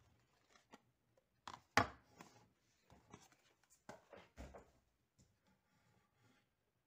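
Faint handling sounds of unboxing: a clear plastic speedcube case and its cardboard box being lifted and set down, a few soft knocks and rustles, the loudest about two seconds in and a short cluster about four seconds in.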